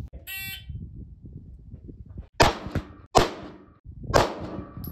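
Three pistol shots, the first about halfway in and the rest roughly a second apart, each with a short echo. A short electronic beep sounds just before them, near the start.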